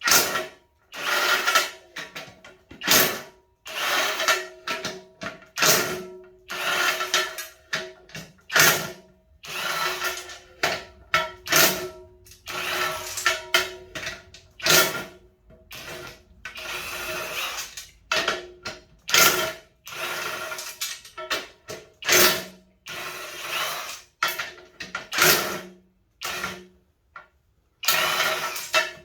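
Power tool spinning out the small assembly bolts of a multi-piece Forgiato wheel, in a run of short bursts about half a second to a second long with brief pauses between bolts.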